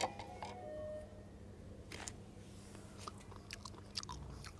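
A person chewing a piece of cooked beef close to a lapel microphone: faint, irregular small clicks and smacks of the mouth. It is a taste to check whether the meat is done.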